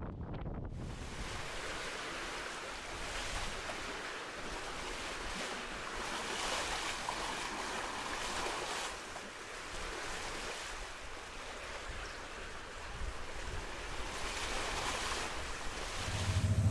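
Sea water rushing and washing along the hull of an aluminium sailing catamaran under way, with wind on the microphone. It sets in abruptly under a second in and swells and eases with the waves.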